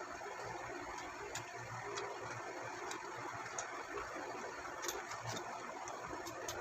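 Light, scattered clicks and taps, seven or so at irregular spacing, from the parts of a ring light being handled and fitted together, over a steady hiss.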